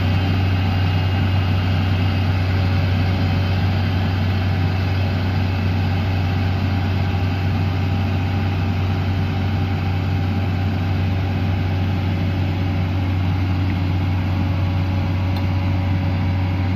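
JCB 210 tracked excavator's diesel engine running steadily with a constant deep hum while the machine lowers itself back level on its tracks.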